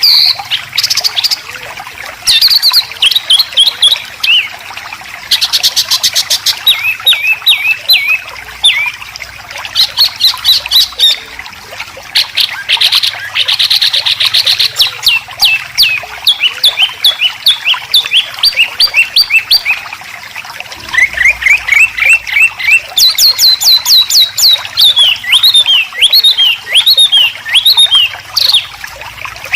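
Songbird 'besetan' song: long runs of sharp, rapidly repeated sweeping notes, broken by harsh buzzing rattles about six seconds in and again at around thirteen to fourteen seconds.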